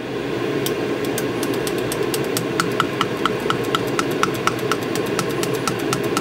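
Liquid plastisol being stirred by hand in a glass measuring cup, the stirrer ticking against the glass in a quick, even rhythm of about five ticks a second, over a steady background hum.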